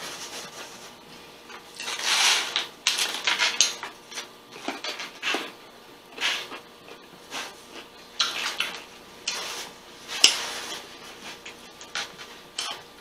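Close-miked eating sounds at a table: a paper napkin crumpled and rustled while hands are wiped, and crunching and chewing of food, in irregular short bursts with a few light taps against a plate.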